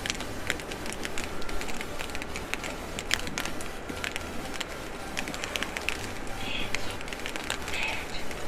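Snow striking an umbrella sheltering the camera, heard as many irregular small ticks over a steady rumble of wind on the microphone.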